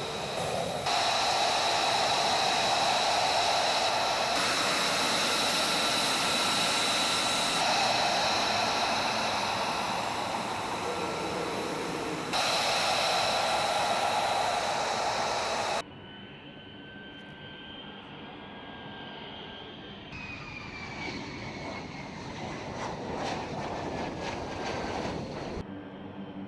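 F-35B Lightning II's Pratt & Whitney F135 turbofan running at taxi power: a loud rush with a steady high whine, broken by several abrupt cuts. About two thirds of the way in it drops to a quieter, more distant jet sound with a whine that slowly falls in pitch.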